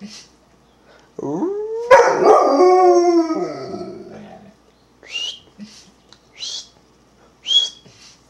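Old English Sheepdog howling, set off by an emergency broadcast system test: one long howl that rises in pitch, holds, then slides down and fades over about three seconds. It is followed by three short, high, rising yips about a second apart.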